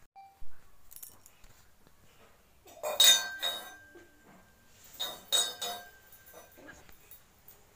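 Two short bursts of clinking with a brief ring after each, about three seconds in and again about five seconds in.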